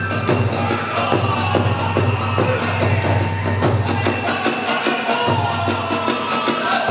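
Kagura festival music: fast, driving drum strokes with clashing hand cymbals and a held flute melody above.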